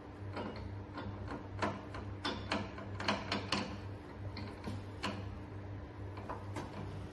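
Irregular light clicks and taps as parts at the top of a hydrofacial machine are worked by hand during assembly, most of them close together in the middle, over a steady low hum.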